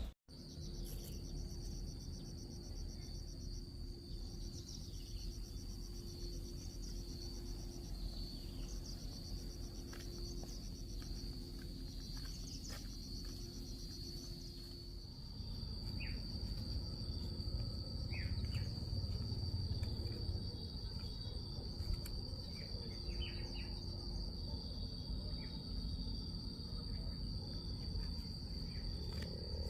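Crickets and other insects chirring: a steady high-pitched trill, with a faster pulsing chirp over it for the first half. A low rumble comes in about halfway through.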